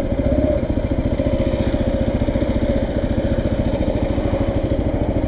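Kawasaki KLR motorcycle's single-cylinder engine running steadily, an even, rapid stream of firing pulses.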